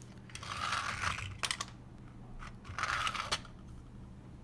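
3D-printed plastic drawers sliding in and out of their shelf twice, each slide a short rasp of plastic on plastic, with sharp clicks and knocks as the drawers hit home.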